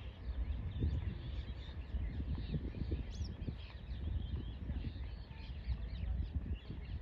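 Many birds calling at once: short, quick calls that rise and fall in pitch and overlap throughout. Beneath them is a steady low rumble with soft thumps.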